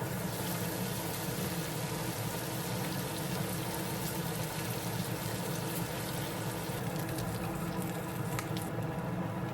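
Food cooking on a stove: a steady, even sizzling hiss.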